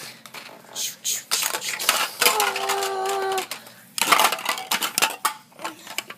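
Lego plastic pieces clicking and clattering as a toy plane is handled and set down. In the middle, a voice holds one steady note for about a second.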